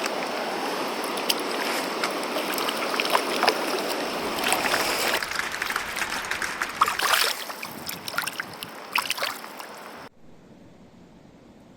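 Mountain stream water rushing and splashing over rocks, with many small sharp splashes; the sound cuts off abruptly about ten seconds in, leaving a low hiss.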